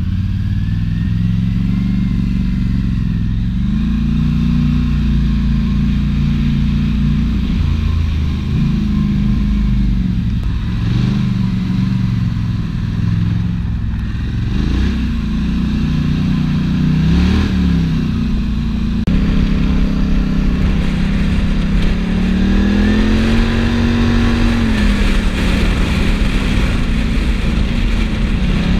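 Quad bike (ATV) engine running while riding, its pitch rising and falling over and over with the throttle.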